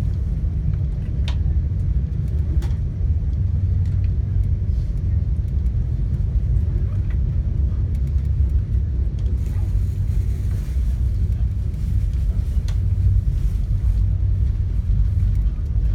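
VIA Rail passenger train in motion, heard from on board: a steady low rumble of the running gear on the rails, with a few sharp clicks.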